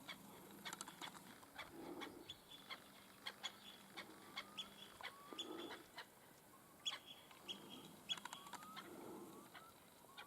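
Wild birds calling from a distance: many short, high notes and a few rising calls scattered through the quiet, with faint low thuds every few seconds.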